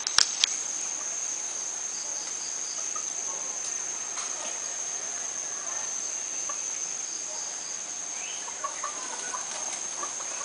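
Steady high-pitched insect drone, with scattered faint bird calls over it. Two sharp clicks at the very start.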